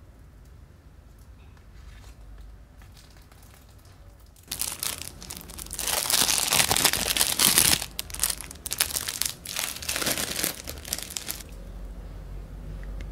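Clear plastic cling film crinkling as spring rolls wrapped in it are handled and unwrapped up close. It starts sharply about four and a half seconds in, with dense quick crackles, and stops about a second and a half before the end.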